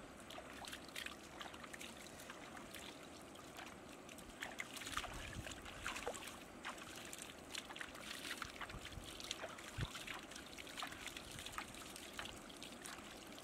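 Shallow water splashing and dribbling as a large fish is rinsed by hand, with many small irregular splashes and drips.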